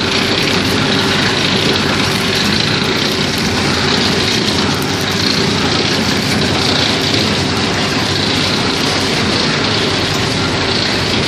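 Candy packing machine running steadily: an even mechanical noise with a constant hum.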